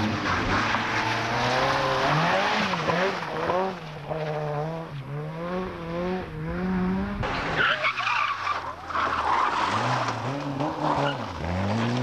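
Ford Sierra RS Cosworth rally car's turbocharged four-cylinder engine revving hard, its pitch rising and falling through repeated gear changes as it drives past at racing speed. About seven seconds in the sound cuts to a second rally car, a Peugeot 205, sliding through a loose gravel corner with tyres skidding and the engine revving up again near the end.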